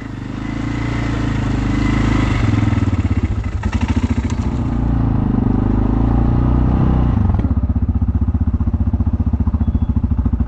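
An ATV engine riding up, growing louder over the first couple of seconds and running steadily, then dropping to an even idle about seven seconds in.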